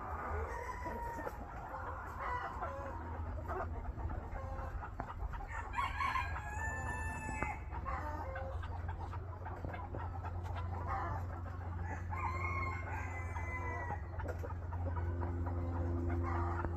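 A rooster crows twice, once about six seconds in and again about twelve seconds in, each crow lasting well over a second, with shorter clucking calls from chickens between them.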